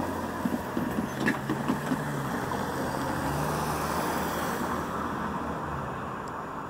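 Cars driving across a railroad crossing, a steady engine and tyre noise, with a few short knocks in the first two seconds.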